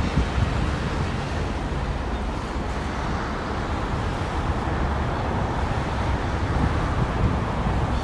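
Wind buffeting the microphone, a steady but fluctuating low rumble with no distinct bird calls standing out.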